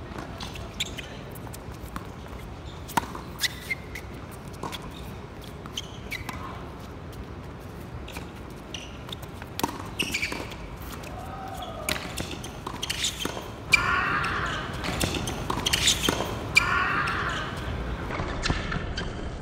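Tennis rally: sharp cracks of racket strikes and ball bounces on the hard court every second or two. In the last third a man screams loudly in two long bursts.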